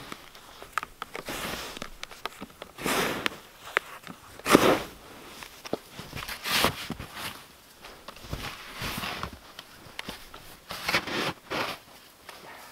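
Snow shovel with a plastic blade digging and scraping into deep snow, in repeated strokes about every second or two, the snow crunching as each load is lifted; the strongest strokes come about four and a half and six and a half seconds in.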